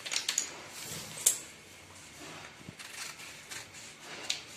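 Folded newspaper, four layers thick, being handled and cut with large tailor's scissors: crisp paper rustles and scissor snips. The sharpest click comes just over a second in, with quieter rustles and snips after it.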